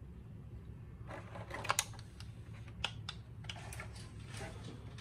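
Light plastic clicks and taps of Heroclix miniatures on their plastic dial bases being handled and set down among the other figures, over a low steady hum. A cluster of clicks comes about a second in, another near three seconds, and a few more around four seconds.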